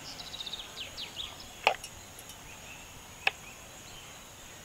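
A metal spoon clinks sharply twice against a ceramic bowl, about a second and a half apart, while runny egg mixture is ladled out. A run of quick, high chirps sounds in the background at the start.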